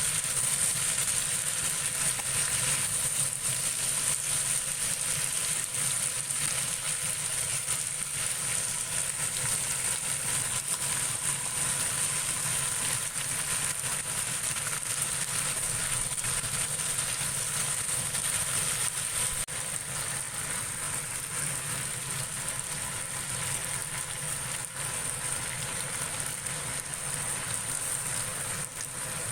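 Potatoes and chicken sizzling and crackling steadily in a frying pan, over a steady low hum.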